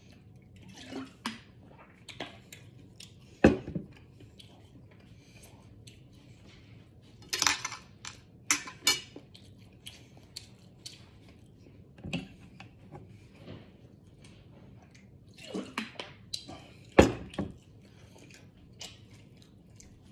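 Scattered clinks and knocks of tableware on a wooden table: a plate, cutlery and a drink bottle being handled and set down, with louder knocks about three and a half seconds in and near the end.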